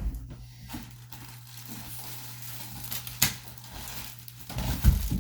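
Rustling and handling noises, like crinkling material or packaging being moved. There is a sharp knock about three seconds in and a couple of louder thumps near the end.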